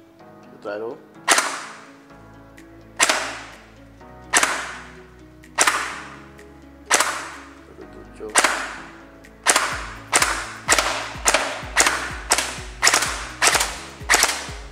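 Red Lotus AAC Honey Badger gel blaster, an electric blaster with a nylon gearbox, firing single shots through a chronograph in a velocity test. Six sharp shots come roughly one and a half seconds apart, then a quicker string at about two shots a second.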